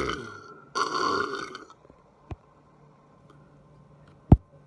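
A person burping: the fading tail of one loud burp, then a second burp lasting about a second. About two and a half seconds later comes a loud sharp knock, with a smaller click before it.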